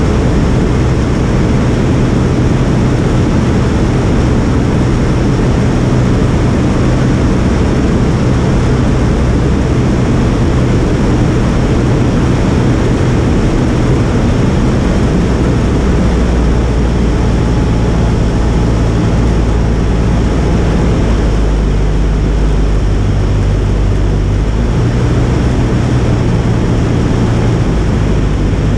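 An Avid Flyer's Jabiru 2200A four-cylinder air-cooled engine and propeller, heard from the cockpit on the landing approach, running steadily at approach power. Its pitch shifts a few times in the second half.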